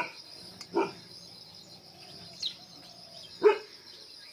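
A Himalayan Gaddi (Bhotia) dog barks in single barks spaced apart: twice, once near the start and once about three and a half seconds in. A steady high-pitched insect drone runs underneath.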